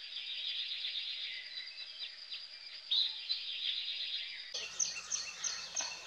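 Wild outdoor ambience: birds chirping over a steady high-pitched insect drone. About four and a half seconds in, the sound changes abruptly to a different ambience with a regular chirp repeating about three times a second.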